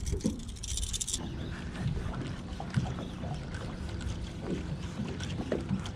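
Wind on the microphone and water lapping around a small fishing boat, with scattered faint knocks and a brief fast rattle of light ticks in the first second.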